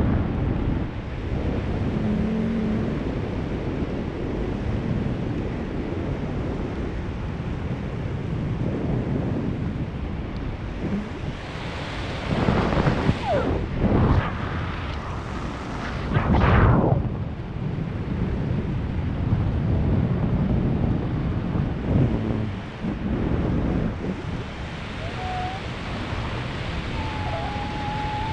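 Wind rushing over the jumper's head-mounted camera microphone during a parachute descent, with louder gusts in the middle. Near the end a faint, slightly wavering tone comes in.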